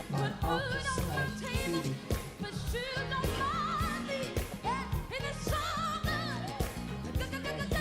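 Background pop song with a singing voice over a steady drum beat and bass.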